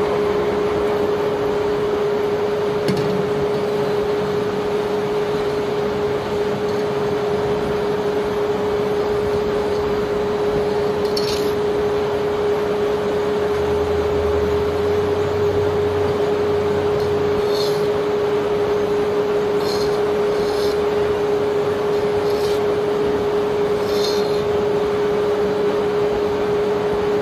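Barge unloading machinery running with a steady hum and one constant tone, over a haze of noise. A few short, light metallic clinks come from about three seconds in onward, the steel rod working the sand knocking against the barge's steel hold.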